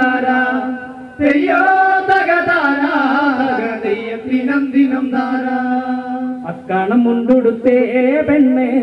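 A group of men chanting a folk song on stage, holding long wavering notes, with a short break about a second in and another near six and a half seconds, and a few sharp strikes.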